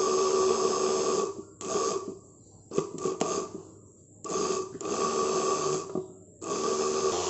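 Motorcycle self-starter motor, a small brushed DC motor, spinning unloaded at high speed with a steady whine, cutting out and restarting several times as the supply wire is touched to and lifted off its terminal. Short bursts and sharp clicks come from the wire making and breaking contact.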